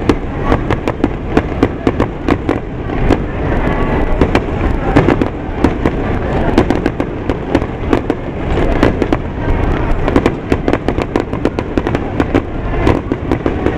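Aerial firework shells bursting in a dense, rapid series of sharp bangs and crackles.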